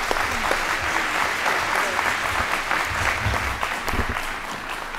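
Audience applauding, a dense, steady clapping that eases slightly toward the end.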